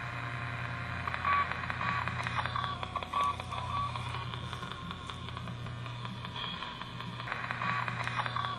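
Spirit box radio scanner sweeping through stations: continuous static and a low hum with fast clicking. Short beeps at one pitch, about two a second, come in two runs, one in the first half and one near the end.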